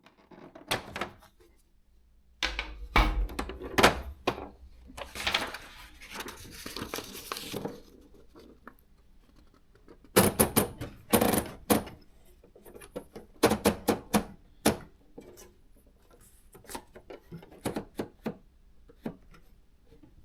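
Olivetti Praxis 100 electronic typewriter printing: irregular sharp clacks as characters are typed, in uneven bursts, with a longer, steadier mechanical run of about two and a half seconds partway through.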